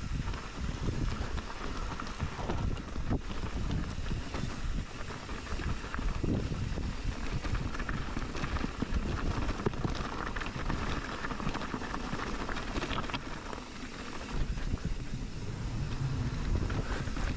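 Wind buffeting the microphone over the rattle and crunch of a mountain bike riding fast down a rough trail, with many small knocks from the bike over the bumps.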